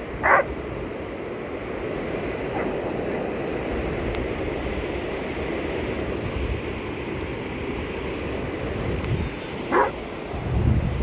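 A dog yelps briefly twice, once just after the start and once near the end, over a steady rush of ocean surf and wind. A low rumble comes near the end.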